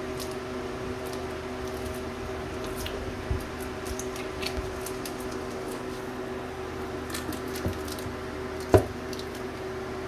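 Uncapping scratcher working wax cappings off a frame of honeycomb: soft wet squishing and light scraping clicks over a steady mechanical hum, with a sharp knock near the end.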